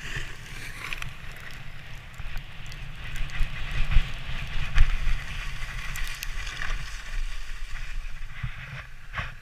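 Sledge runners scraping and hissing over packed snow at speed, with wind rumbling on the camera microphone. There are a couple of sharper knocks about halfway through as the sledge bumps along the track.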